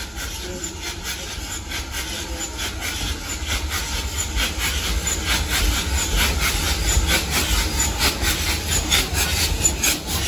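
BR Standard Class 2MT 2-6-0 steam locomotive 78019 running in alongside the platform at the head of a train of coaches, growing louder as it comes close. It makes a low rumble with a hiss of steam and a quick, steady clicking.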